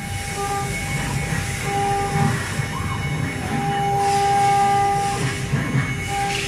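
Routerstar RS1325 CNC router carving with a V-bit: the spindle runs and the cutter chatters through the material, while a whine starts and stops in short stretches as the head moves.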